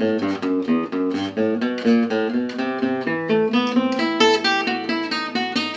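Acoustic gypsy jazz guitar playing a fast single-note lick in E minor, a continuous run of picked notes starting from the open low E string.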